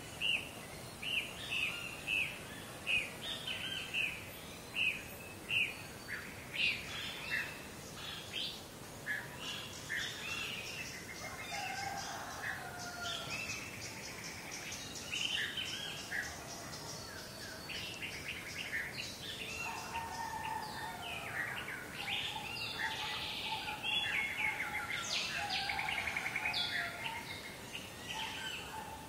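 Morning chorus of several birds chirping and singing together over a faint outdoor hiss. A loud sharp chirp repeats about once a second for the first several seconds, then the calls thicken into overlapping song, with some lower held calls joining in later.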